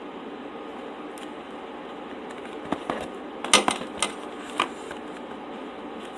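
A handful of short, crisp clicks and crunches of food and tableware being handled at an eating table, clustered in the middle and loudest about three and a half seconds in, over a steady background hiss.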